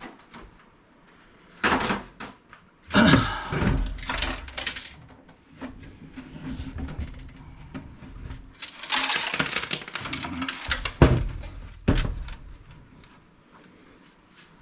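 Plastic panels and steel sides of a desktop PC case being worked apart by hand: irregular knocks, thunks and scraping rattles as the pieces are pushed, slid and pulled, with a loud knock about eleven seconds in.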